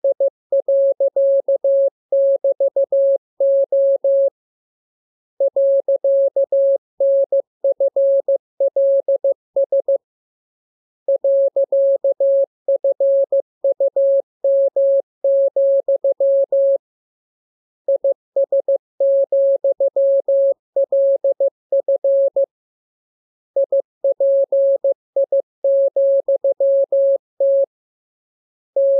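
Morse code: a single steady mid-pitched tone keyed in dots and dashes, sent in groups of characters with a pause of about a second between groups. It is a practice radiogram of the lesson's letters for copying by ear.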